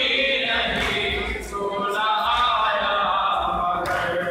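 Men's voices chanting a noha, a Muharram lament, together in a crowd.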